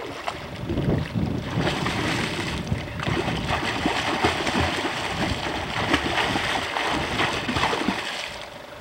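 Children kicking and paddling in lake water, a continuous run of splashing that eases off near the end.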